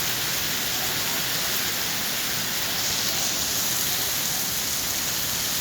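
Heavy downpour: rain falling hard and steadily, an even hiss of water with no breaks.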